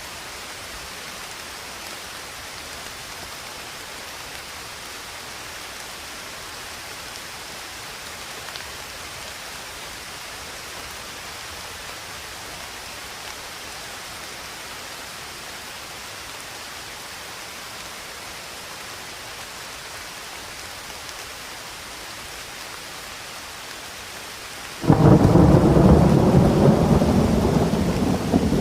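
Steady rain hiss. Near the end, thunder breaks in suddenly and loudly, then rumbles on, slowly fading.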